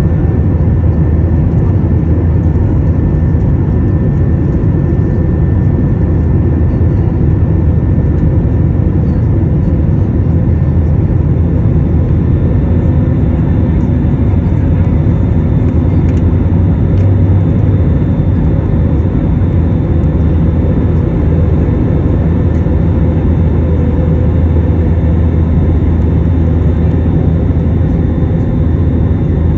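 Airbus A321 cabin noise during the climb after takeoff: a steady low rumble of jet engines and rushing air, with a faint steady whine above it.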